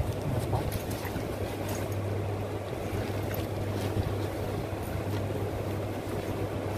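Steady low hum with the rustle of a nylon duffle bag and its plastic wrapping being handled close to the microphone, with a few faint crinkles.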